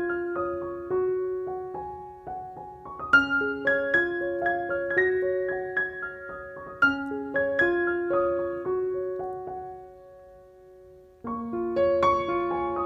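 Background piano music: a gentle melody of single struck notes. It fades away about ten seconds in, and a new phrase begins a second later.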